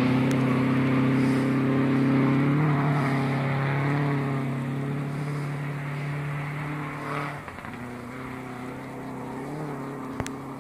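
Subaru WRX STI rally car's flat-four engine running hard out of sight, growing gradually fainter. Its note shifts in pitch a couple of times, about two and a half and seven seconds in.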